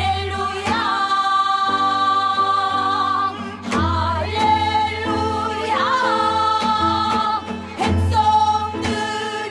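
Pansori singing with instrumental accompaniment: long held, wavering vocal notes that slide between pitches, over a low bass with a strong low beat every four seconds or so.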